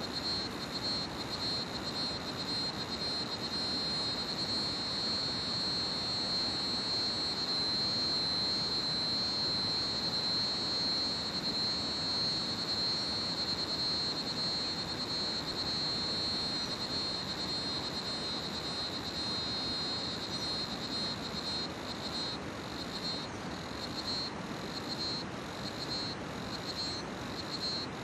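Crickets trilling continuously in one steady high-pitched band, over the even rush of a river. In the last several seconds the trill breaks up into separate pulses.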